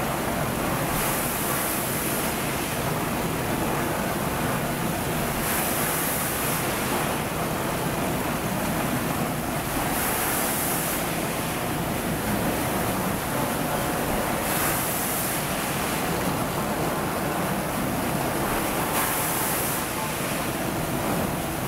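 Steady hiss and whir of a running shrink-sleeve labelling line as empty PET bottles pass through. A brief, sharper high hiss comes back about every four and a half seconds.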